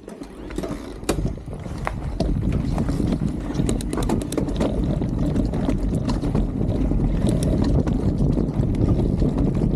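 Mountain bike rolling off down a dirt trail: tyre noise and wind on the microphone build over the first two seconds as it picks up speed, then hold steady, with many sharp clicks and rattles from the bike over the rough ground.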